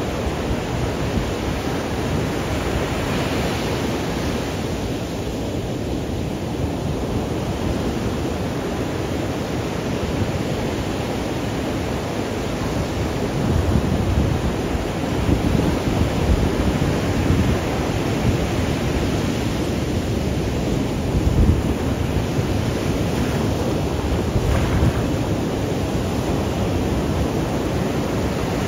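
Ocean waves breaking and washing up on a beach, a continuous rush of surf that swells louder now and then, with wind buffeting the microphone.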